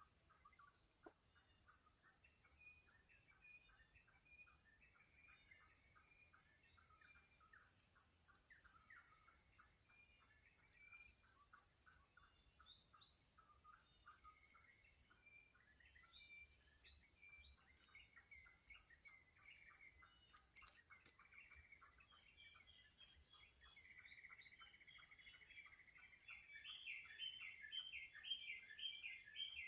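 Faint tropical forest ambience: a steady high drone of insects, with small birds chirping in quick short notes that grow busier and louder in the last few seconds.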